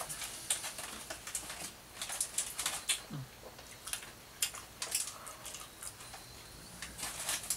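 People chewing mouthfuls of burger: irregular smacking and clicking mouth sounds, several a second.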